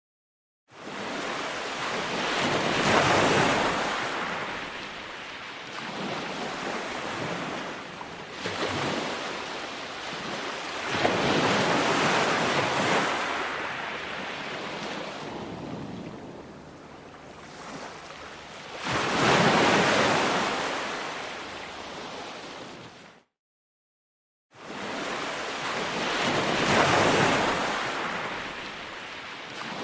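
Ocean surf breaking on a beach, each wave swelling and washing back about every eight seconds. The sound drops out to dead silence twice, briefly at the start and for about a second and a half around 23 seconds in.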